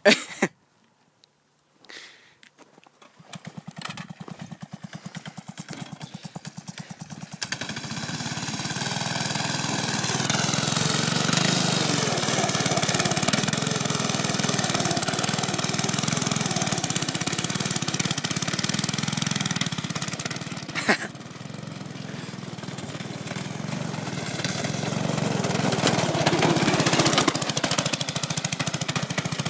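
Go-kart's small petrol engine catching about three seconds in, then running and revving under load as the kart is driven through snow. It drops briefly about two-thirds of the way through, then picks up again.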